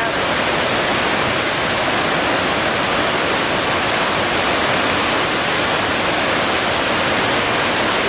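Loud, steady rush of a river in flood tearing over rapids, the whitewater churning without a break.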